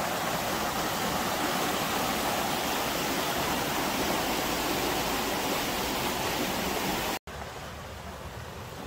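Fast-flowing stream rushing white through a water mill's race beside the wheel, a steady rush of water. It drops out for an instant about seven seconds in and comes back quieter.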